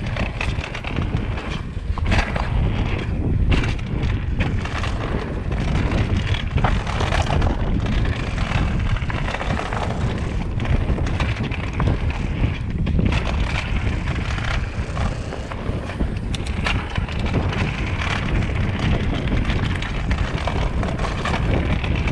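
Mountain bike rolling fast along a dirt singletrack trail: a steady low rumble of wind on the microphone and tyres on dirt, with frequent sharp clicks and rattles from the bike over the rough ground.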